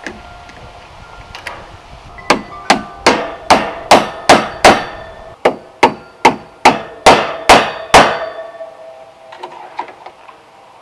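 Claw hammer driving poultry-net staples over steel remesh wire into a wooden post: about fourteen sharp blows, roughly two or three a second, starting about two seconds in, each with a short metallic ring.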